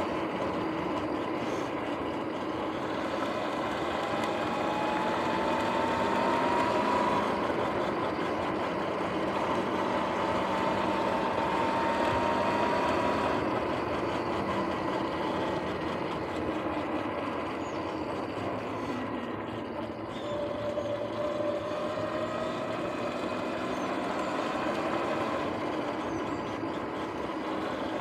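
Sur-Ron X electric dirt bike riding on pavement: tyre, wind and drivetrain noise, with the electric motor's thin whine rising in pitch twice as it speeds up and a lower whine briefly a little after the middle. The rider suspects the front wheel hub bearings are making noise.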